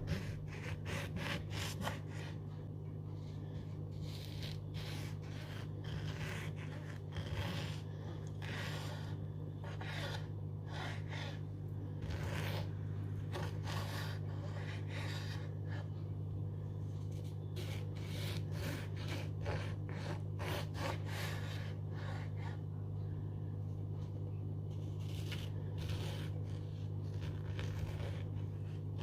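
Irregular scraping and rubbing strokes, some quick runs and some single strokes, over a steady low hum.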